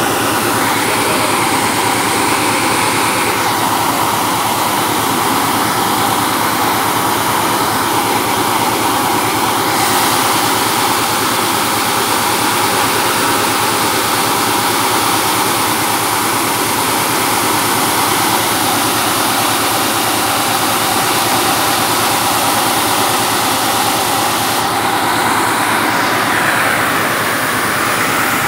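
Air-blast mist sprayer running: its large axial fan blows a loud, steady rush of air while the nozzles spray mist.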